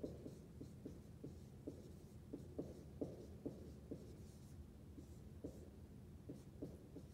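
Dry-erase marker writing on a whiteboard: faint, irregular taps and scratches of the pen strokes, several a second.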